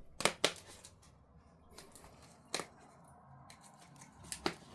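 Light clicks and taps of a tea scoop and tea containers being handled while measuring dried spearmint leaves: two close together near the start, one in the middle, two more near the end.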